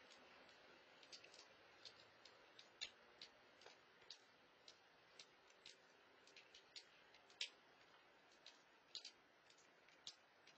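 Feral cats eating from a dish close to the microphone: faint, irregular crisp clicks of chewing, a few each second, over a low hiss.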